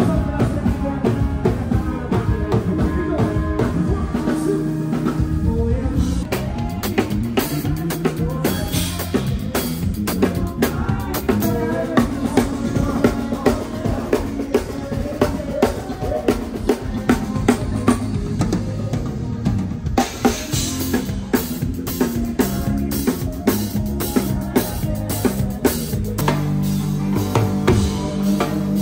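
Live band music in a drum-heavy instrumental passage: a full drum kit and a large stick-beaten barrel drum play dense, rapid hits over keyboard and bass notes.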